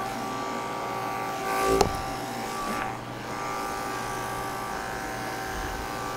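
Five-speed electric pet clipper running with a steady hum as it shaves a cat's coat. A short knock comes a little under two seconds in.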